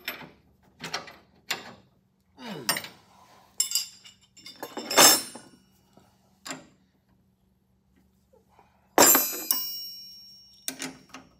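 Three-quarter-inch wrenches clinking and clanking on suspension bolts while the bolts are checked for tightness. Irregular metal clicks and taps, with a louder ringing clank about nine seconds in.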